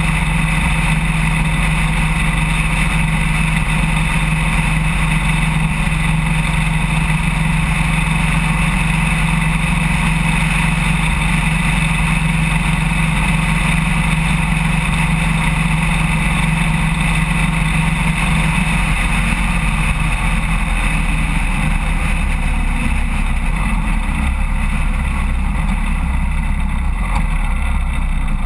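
Harley-Davidson Road King motorcycle's V-twin engine running at steady highway cruise under a constant rush of wind and road noise. After about two-thirds of the way through, the engine's steady tone fades and the sound shifts lower as the bike slows.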